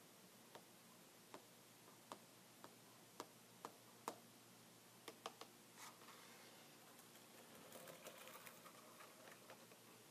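Close, quiet tapping on a computer keyboard: single clicks spaced irregularly, then from about six seconds in a softer, denser run of quick light ticks and scratching.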